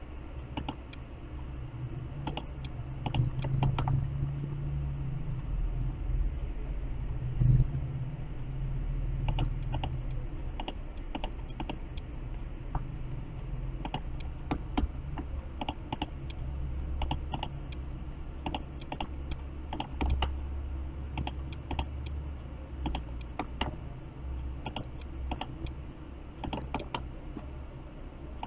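Scattered sharp clicks from a computer's mouse and keys, often two or three close together, as curve nodes are placed by hand. They sit over a low steady hum.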